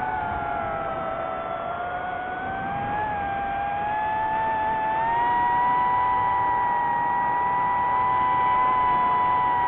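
DJI FPV drone's motors and propellers whining in flight. The pitch rises between about three and five seconds in as the throttle comes up, then holds high.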